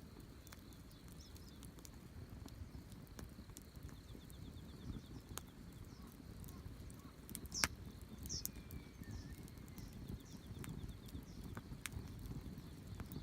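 Wood campfire burning, crackling with sharp pops at irregular intervals and one louder snap about halfway through. A few faint bird chirps come through in the background.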